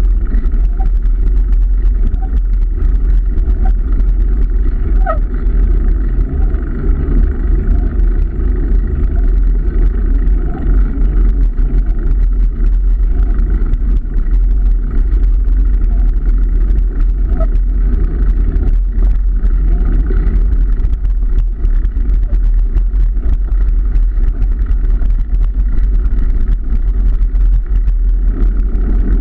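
Steady, loud wind rumble on the microphone together with road noise while travelling along a road, with a few faint ticks.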